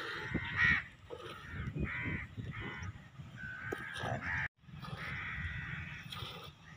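Hand milking of a cow into a steel pitcher, with the milk streams squirting into the metal, under birds calling repeatedly nearby; the sound drops out for a moment about four and a half seconds in.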